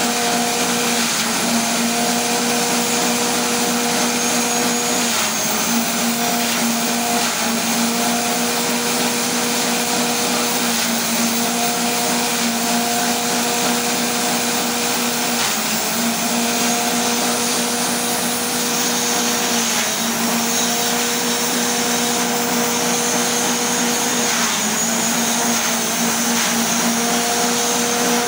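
Small petrol engine driving a grass and forage chopper, running steadily with a hum and a rushing whirr from the cutter. Every few seconds its pitch sags briefly and recovers.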